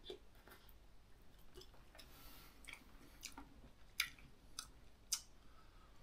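A man chewing a mouthful of ramen noodles, faint, with three sharp clicks in the last two seconds.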